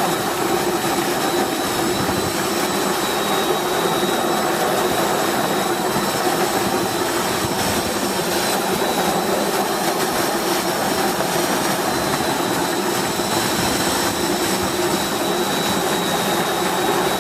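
Walnut washing machine running steadily: a continuous mechanical rush with a steady high whine over it.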